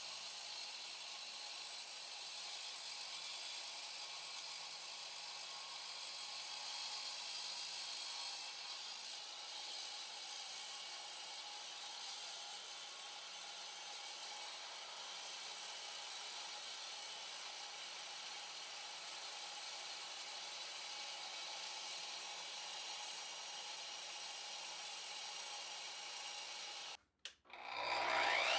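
Power tool running steadily with a hissing, grinding noise. Near the end the sound cuts out briefly, then a motor spins up with a rising whine.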